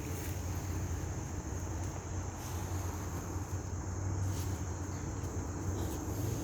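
Insects, likely crickets, trilling steadily in an even high-pitched band over a constant low rumble.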